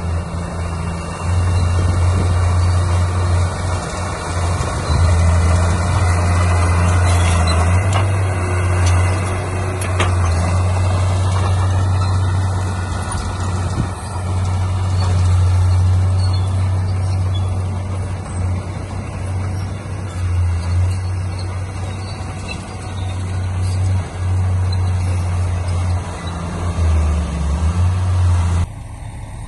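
Heavy diesel construction machinery running under load, a steady low engine drone with clanking noise over it and a brief squeal near the middle; the sound drops off abruptly near the end.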